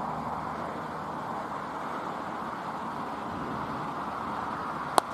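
Steady outdoor background hiss, then near the end a single sharp crack of a cricket bat striking the ball.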